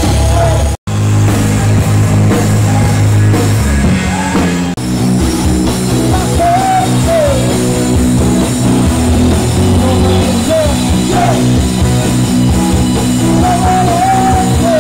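Live rock band playing loud through stage speakers: electric guitars, bass and drum kit, with a singer's voice over them. The sound cuts out completely for an instant under a second in.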